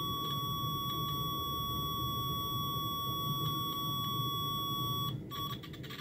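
Digital multimeter's continuity beeper sounding one steady high tone while the probes are held in contact, showing a good, low-resistance connection through probe tips that are still pretty much okay despite years without cleaning. About five seconds in, the tone cuts out and stutters briefly.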